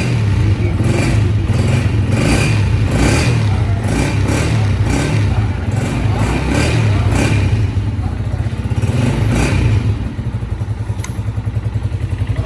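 Honda CG 125 single-cylinder four-stroke engine running, revved in repeated quick throttle blips, then settling back to an even idle about ten seconds in.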